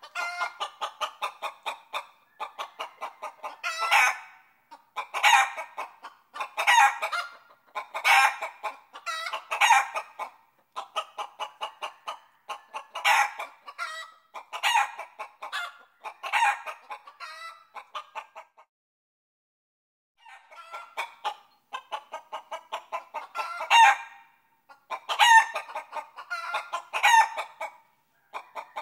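Chickens clucking and calling over and over, loud drawn-out calls coming about every second, with a pause of about two seconds two-thirds of the way through.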